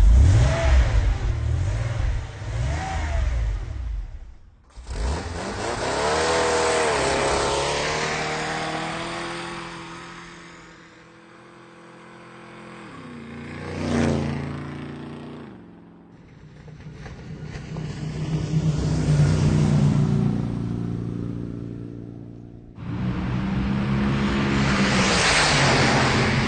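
Car engines revving and driving past, with the loudness swelling and fading as they approach and move away. About fourteen seconds in, one pass peaks and its pitch drops as it goes by. The clips change abruptly a few times.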